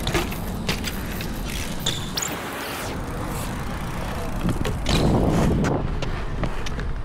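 BMX bike rolling over concrete: steady tyre rumble with scattered clicks and knocks from the bike, louder for a moment about five seconds in.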